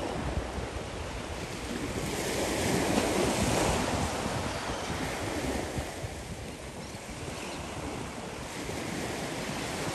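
Ocean surf breaking and washing onto the beach, swelling louder a couple of seconds in and easing off again, with wind buffeting the microphone.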